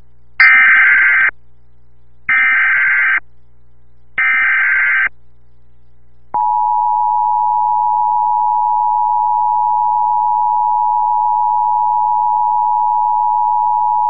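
NOAA Weather Radio Emergency Alert System activation. First come three short, harsh SAME digital header bursts about a second apart, then the steady single-pitch 1050 Hz warning alarm tone for about eight seconds. The sequence signals that a tornado warning is about to be broadcast.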